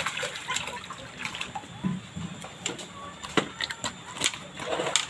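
Water splashing and sloshing as a hooked bawal (freshwater pomfret) thrashes at the surface of a shallow pond and is drawn into a landing net, with scattered sharp clicks and knocks.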